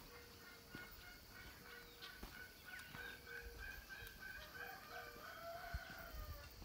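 Faint farmyard chickens calling, with a rooster's drawn-out crow near the end.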